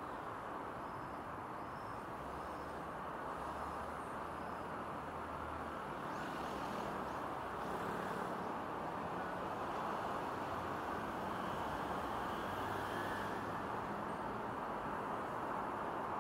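Steady road traffic noise from cars in slow, congested multi-lane traffic: tyres rolling and engines running, with a brief high hiss about six to eight seconds in. It grows a little louder in the second half.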